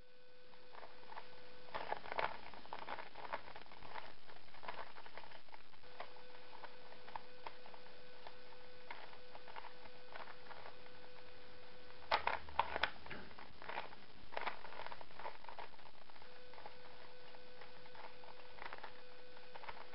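Plastic 3x3x3 Rubik's cube being twisted by hand: irregular clicks and clattering of its layers turning, in clusters, with a denser run of clicks about twelve seconds in, over a faint steady hum.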